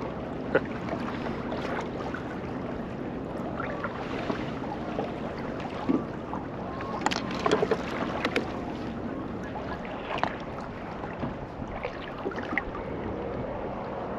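Water lapping against a pedal kayak's hull with wind on the microphone, and scattered small clicks and knocks from handling hook and tackle, several close together about seven to eight and a half seconds in.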